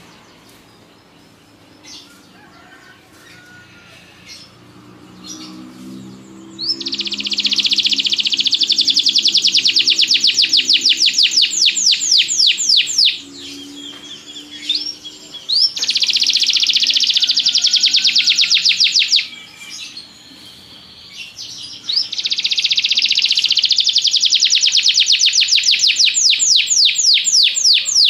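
Domestic canary singing: a few faint chirps, then three long, very fast trilled rolls of high notes. The first roll starts about six seconds in, and each is separated by a short pause.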